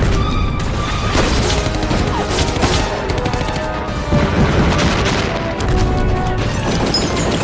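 Film battle sound effects: explosions and volleys of gunfire under a dramatic music score.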